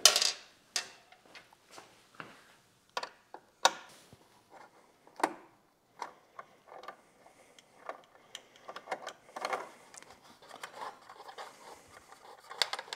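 Irregular small metallic clicks and taps of a 5 mm Allen wrench turning and freeing the bolts of a motorcycle's plastic engine side cover, with light rattles as the bolts are handled; the sharpest click comes right at the start.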